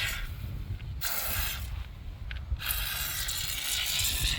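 Aerosol spray hissing in bursts onto a motorcycle drive chain: a short burst about a second in, then a longer one of nearly two seconds near the end.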